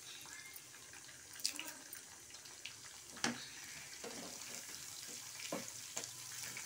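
Hot oil in a frying pan sizzling faintly around garlic, seasoning seeds and dried red chillies, with curry leaves going in and frying. A few sharp clicks come through the hiss, and the sizzle gets a little fuller in the second half.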